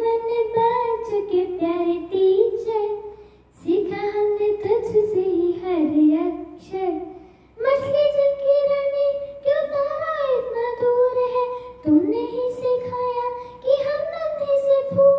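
Young girl singing a Hindi song solo into a handheld microphone, in four phrases with short breaks between them.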